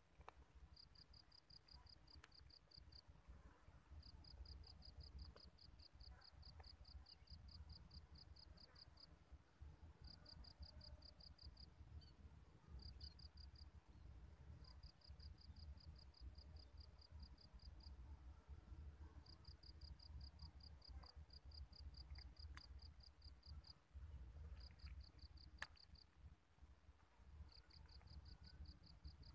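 Faint cricket chirping: rapid trains of high-pitched pulses, about five a second, in bouts of one to five seconds with short pauses between, over a low rumble.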